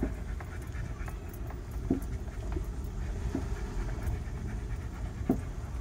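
Car rolling slowly along a dirt road, heard from inside the cabin: a steady low rumble of tyres and body, with scattered clicks and three sharper knocks from the rough surface.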